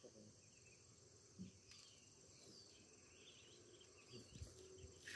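Near silence: faint steady chirring of insects, with a few faint short chirps scattered through.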